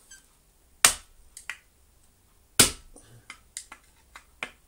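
Hammer blows on a screwdriver held against the motor's field coil, knocking the coil down into the plastic motor housing of a Miele vacuum cleaner. There are two hard blows about two seconds apart, with lighter taps and clicks between and after them.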